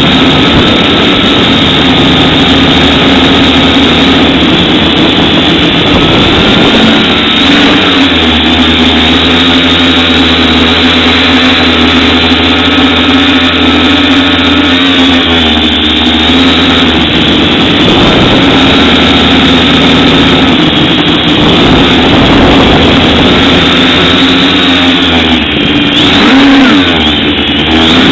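FPV quadcopter's electric motors and propellers whining loudly, their pitch shifting up and down several times as the drone flies.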